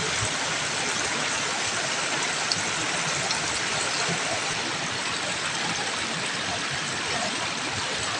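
Creek water running steadily over rocks, with a few small clicks, the sharpest about two and a half seconds in.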